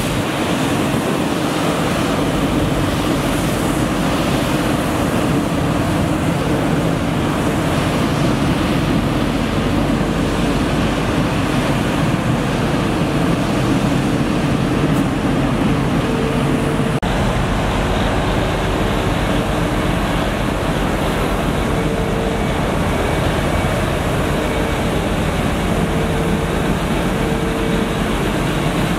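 Mercedes-Benz Arocs 1833 street sweeper working: its engine and sweeping gear make a loud, steady rushing din with a faint steady whine, as the brushes sweep grit off the asphalt.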